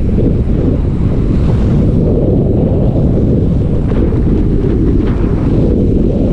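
Wind buffeting the microphone of a camera on a bicycle riding at speed: a loud, steady rumble.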